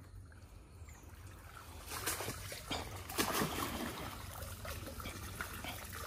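Water splashing and trickling in small irregular splashes, rising from a faint quiet start about two seconds in.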